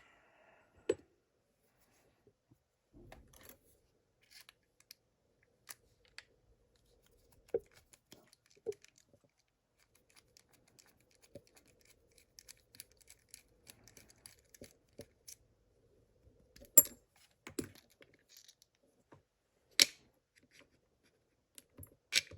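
Scattered small metallic clicks, taps and scrapes of a padlock and its parts being handled and taken apart, with a few sharper clicks in the second half.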